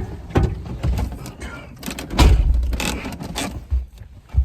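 Chevrolet Tahoe door being worked: a run of clicks and knocks from the latch and handle, with one heavy thump about two seconds in, as of the door shutting.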